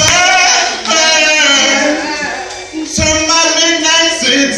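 A man sings a gospel solo into a microphone over the church sound system in long, drawn-out, melismatic phrases, with short breaks about a second in and about three seconds in.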